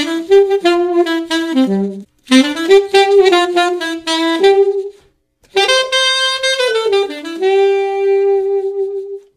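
A solo saxophone plays a short melody in three phrases with brief pauses between them. The last phrase ends on a long held note.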